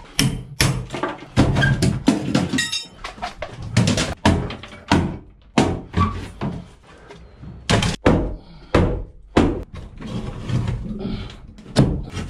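Plywood box and wooden framing being wrenched and pried apart by hand: a rapid, irregular run of knocks, thunks and cracks of wood.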